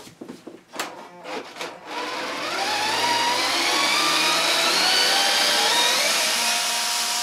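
A few light clicks and knocks, then about two seconds in a cordless drill starts running continuously, backing a screw out of the floorboards; its whine rises slowly in pitch and then holds steady.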